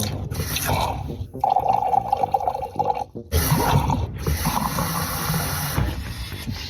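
Water running and pouring in several short stretches that start and stop abruptly, with a steady tone through one stretch in the middle.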